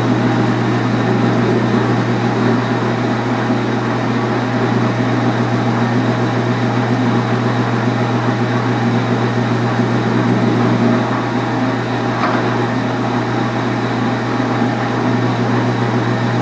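Small metal lathe running steadily with a strong motor hum, while a parting tool cuts off a turned steam-engine spool valve from the bar stock.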